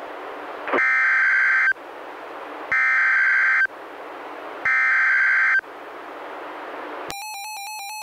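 NOAA Weather Radio SAME header: three screeching digital data bursts of about a second each, two seconds apart, over radio hiss, marking the start of a tornado warning. About seven seconds in, the Reecom R-1630 weather radio's pulsing warning alarm tone starts.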